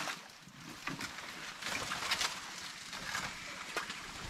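Water splashing around a small boat on a fast-flowing stream, with scattered irregular knocks and splashes.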